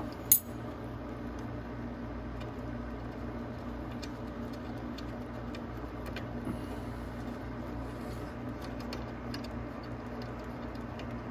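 A sharp click near the start, then faint, scattered clicks and taps of small metal parts. This is the battery hold-down bracket of a mini Jeep being worked loose by hand, over a steady low hum.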